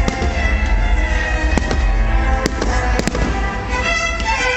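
Aerial firework shells bursting overhead, several sharp bangs a second or so apart, over music with long held notes.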